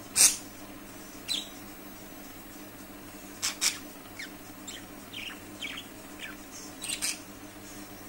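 Budgerigars calling in short, sharp chirps scattered through the stretch, several of them falling in pitch, the loudest just after the start and a quick pair in the middle. A steady low hum runs underneath.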